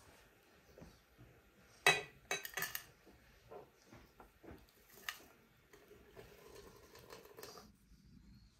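Sharp metal and glass clinks as a samovar and a glass teapot are handled: a cluster about two seconds in and a single one near five seconds. Then hot water runs from the samovar's tap into the glass teapot for under two seconds and stops suddenly.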